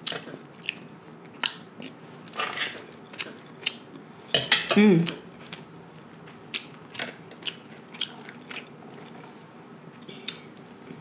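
Close-miked chewing of crisp raw cucumber, with wet mouth clicks and crunches scattered through. A brief voiced hum falling in pitch near the middle is the loudest sound.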